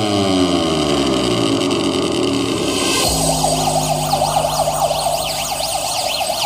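JBL Charge 3 Bluetooth speaker playing an electronic track: several falling synth sweeps, then about three seconds in a deep bass tone comes in under fast wavering high synth tones.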